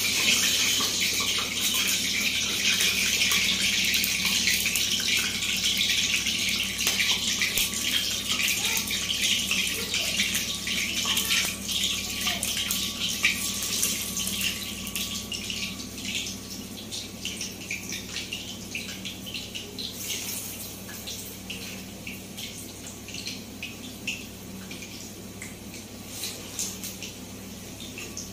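Pieces of dough deep-frying in hot oil in an aluminium kadai: a steady sizzle full of small crackles and pops. The sizzle slowly dies down over the second half.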